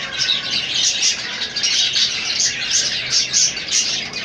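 Budgerigars chirping and chattering without pause, a dense run of short, quick high calls.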